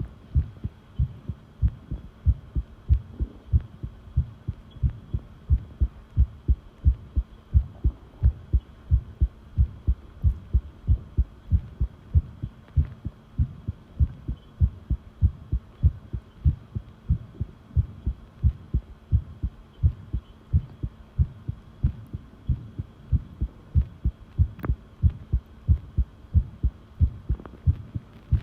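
A human heartbeat recorded close up: a steady, pounding run of low thuds, a few beats a second.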